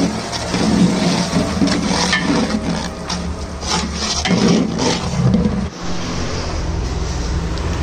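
Long-handled spatula stirring and scraping onion masala around a large aluminium pot, a rough rasping scrape; it stops a little before six seconds in, leaving a steady low hum.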